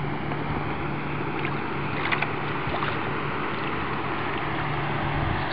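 A boat's motor running with a steady low hum under wind and water noise, with a few faint splashes from a hooked crappie thrashing at the surface.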